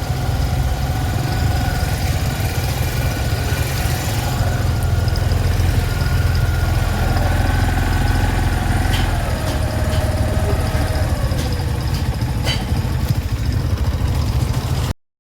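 Motorcycle running steadily with a heavy low rumble, its ignition working again after a new magneto coil was fitted.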